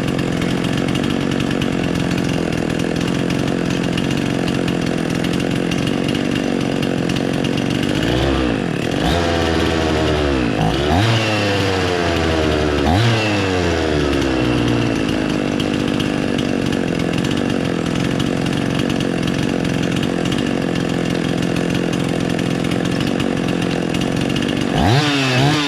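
Husqvarna 50 two-stroke chainsaw engine idling steadily, then about eight seconds in its speed starts surging up and down several times before settling into a faster, uneven idle, with another surge near the end. The hunting idle is the sign of an air leak let in by loosened cylinder head bolts, which the owner calls unmanageable and impossible to adjust out.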